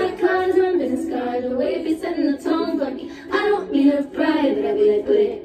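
A woman singing a melody, her voice carrying the tune with little instrumental backing heard.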